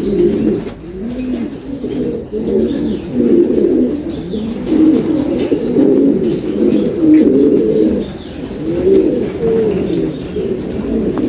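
Several domestic pigeons cooing over one another, a steady run of low rolling coos without a break.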